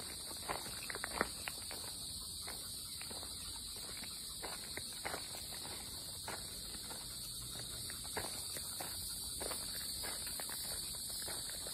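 Steady high-pitched drone of insects in summer woodland, with irregular footsteps on a dirt and leaf-litter forest trail.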